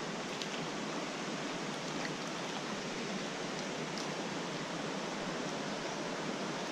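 Shallow creek water running and rippling steadily over stones, with a few faint ticks.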